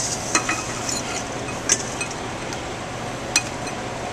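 Steak fries being placed into a small ceramic bowl: a few light clinks and taps against the china, the sharpest two under two seconds in and about three and a half seconds in, over a steady background hum.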